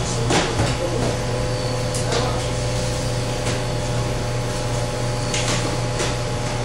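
Steady low machine hum, with a thin high tone joining about a second in. A few light clinks of a utensil on a plate are scattered through as a piece of dessert is served.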